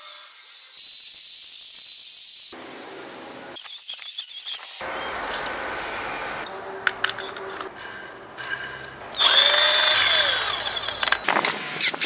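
Electric drill running in separate bursts, one early and a louder one near the end whose pitch winds down, with sharp clicks and knocks of metal parts being handled between them.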